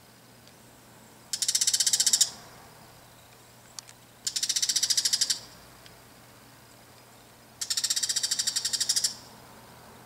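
Bull-headed shrike giving its harsh, high-pitched threat call: three bursts, each about a second long, of very rapid chattering notes, sounding like flint being struck. It is an alarm and threat call aimed at an intruder close by.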